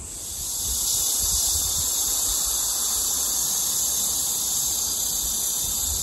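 Cicadas buzzing in a steady, high-pitched chorus that swells up within the first second and then holds level.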